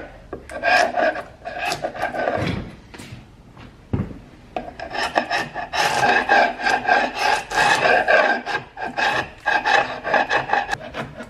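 Sharp chisel scraping old paint off a hardwood door jamb in quick, repeated strokes. The scraping pauses about three seconds in, with a single knock around four seconds, then carries on steadily.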